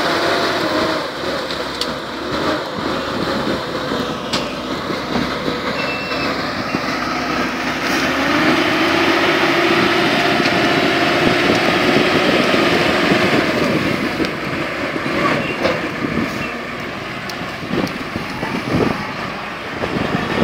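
Heli ZL35E wheel loader's diesel engine working under load as it pushes brush. The engine note rises and holds in the middle, and a few sharp knocks and cracks come near the end.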